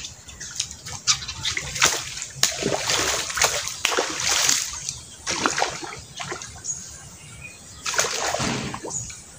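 A hooked fish thrashing and splashing at the surface of a pond as it is played on a rod: a run of repeated splashes through the first half, a quieter spell, then another burst of splashing near the end.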